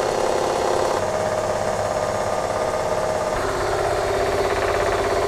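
Reverse-osmosis watermaker's electric motor and high-pressure pump running on a test, a loud steady mechanical hum. Its tone drops a little lower just past three seconds in.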